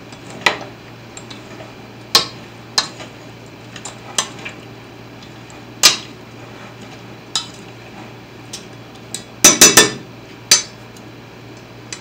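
A spoon clinking and scraping against a stainless steel mixing bowl as wet bread stuffing is stirred: irregular single clinks, with a quick run of louder clatters about ten seconds in.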